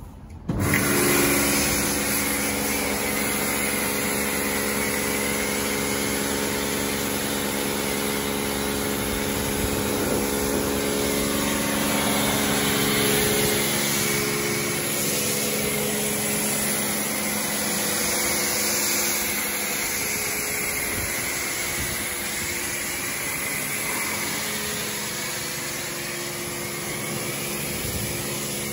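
Ehrle hot water pressure washer running in cold-water mode: its motor and pump start suddenly about half a second in and then run at a steady hum, with the hiss of the high-pressure spray rinsing the vehicle.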